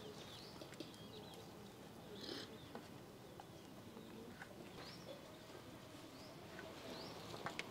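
Quiet outdoor background with a few faint, short rising bird chirps and some small soft ticks.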